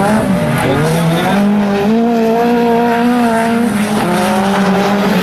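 Autocross cars' engines revving hard on a dirt track, the pitch dipping and climbing again about half a second in, holding high, then dropping near four seconds in as the throttle lifts or the gear changes.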